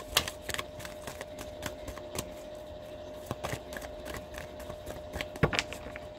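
Tarot cards being handled on a table: a run of irregular light clicks and taps, a couple of them louder, over a faint steady hum.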